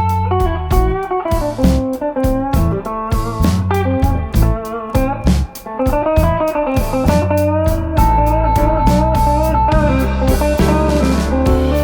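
Background music: a blues-style electric guitar melody over bass guitar and a steady drum beat.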